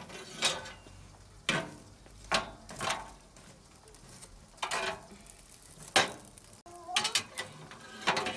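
Metal tongs scraping and clinking against glowing coals and the iron firebox of a small wood-and-charcoal stove, in about eight short separate strokes roughly a second apart.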